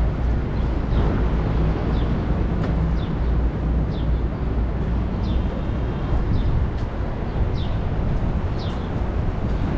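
City street ambience: a steady rumble of traffic with small birds chirping over it, short falling chirps every second or so.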